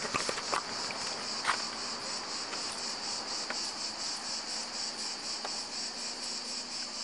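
Insects chirping in a steady, evenly pulsing high-pitched chorus, with a few faint clicks or rustles now and then.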